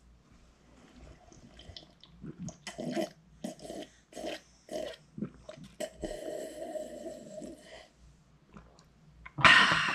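A person gulping coffee from a mug: a run of short swallows about twice a second, then a longer drawn-out drinking sound lasting about two seconds. A voice starts loudly near the end.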